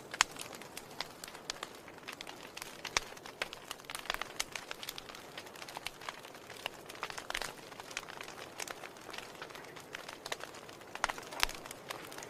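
Wood fire crackling in a fireplace: irregular sharp pops and snaps over a soft steady hiss, with one loud snap just after the start.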